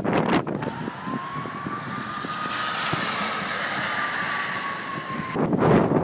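Snowstorm wind buffeting the microphone in gusts. About half a second in this gives way to a steady rushing noise with a thin whine that slowly rises and then sinks a little in pitch. Gusty buffeting returns near the end.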